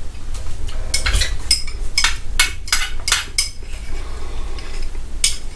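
Metal spoon scraping and clinking against a small glass bowl: a run of about eight quick strokes, then one more near the end.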